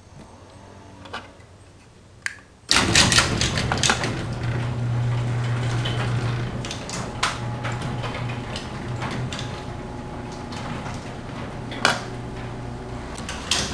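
LiftMaster 3280 half-horsepower garage door opener running to raise the door: a steady motor hum with a clatter of trolley and door rattles. It starts with a jolt about three seconds in, has a sharp knock near the end, and stops just before the end. The motor unit has been lowered to spec, and the trolley rattle is called a little less harsh.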